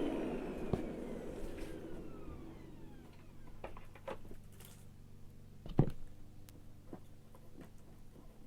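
Hoover vacuum cleaner motor winding down after being switched off, its whine falling in pitch and fading over about three seconds. A sharp knock comes near six seconds in, with a few light clicks after it.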